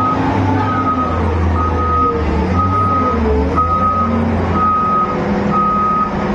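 Excavator's travel alarm beeping about once a second, each beep a steady high tone about half a second long, over the diesel engine running and a wavering hydraulic whine.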